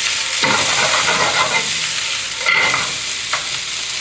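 Pork and vegetables sizzling in a hot frying pan while they are stirred and tossed together, the spatula scraping across the pan in several strokes.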